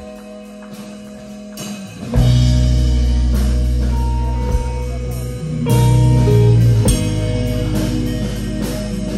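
Rock band playing live with electric guitars and drums: a quiet guitar passage for about two seconds, then the full band comes in loud with heavy low end, swelling again about halfway through.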